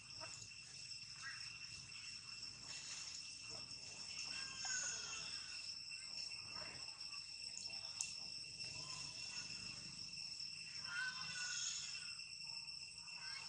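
Forest insect chorus: a steady, unbroken buzz at several constant high pitches. A few short chirping calls rise and fall about halfway through and again near the end, and a single sharp click comes about eight seconds in.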